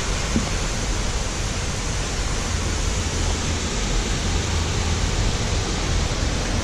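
Steady rushing of a waterfall, an even wash of water noise without breaks.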